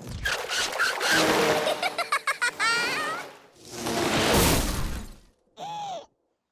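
Cartoon slapstick sound effects: crashing and a quick clatter of sharp hits, then a loud rushing swell, and a short tone that rises and falls before the sound cuts out.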